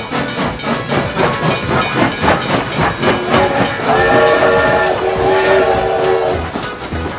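Battery-powered toy steam locomotive running on plastic track, playing its rapid chugging sound effect. About three seconds in its electronic steam-whistle effect sounds, a warbling multi-tone whistle held for about three seconds.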